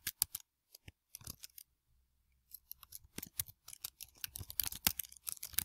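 Typing on a computer keyboard: a few scattered key clicks, a pause of about a second, then a faster, steady run of keystrokes.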